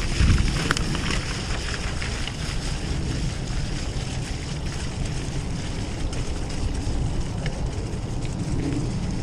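Steady wind rumble buffeting the microphone, with a faint high hiss above it, as heard while riding a bike along a trail.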